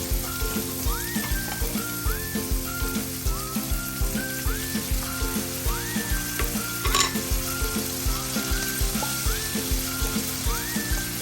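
Background music with a steady beat, held melodic notes and short rising glides, over a steady hiss.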